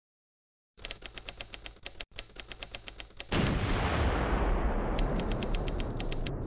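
Typewriter key-click sound effect, rapid, evenly spaced clicks as on-screen text types out. About three seconds in, a loud booming hit with a long low rumble comes in under it, and the clicking starts again near the end.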